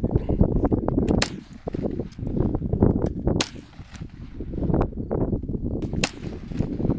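Gunshots at an outdoor shooting range: three sharp loud shots about two to two and a half seconds apart, with fainter shots and knocks between them over a steady low rumble.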